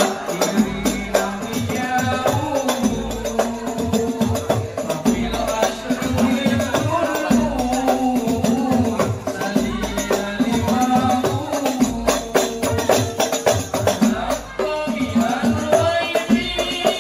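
Al Banjari ensemble performing sholawat: a lead voice singing over a microphone while a group of terbang frame drums beat a dense, steady rhythm, with a deep drum thump about once a second.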